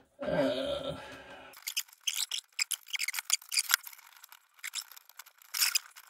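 A short wordless vocal sound of effort, then a dense run of small clicks, scrapes and rustles as a CPU power cable and its plastic plug are worked into the cramped top corner of a PC motherboard.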